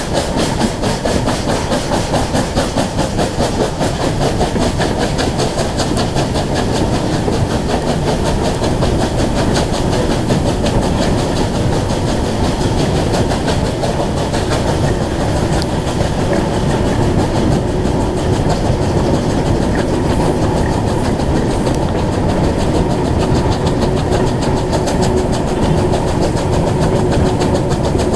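Steam train hauled by Bulleid West Country class 34092 Wells, running with a fast, even rhythm of beats and wheels clattering on the rails, heard from on board the train.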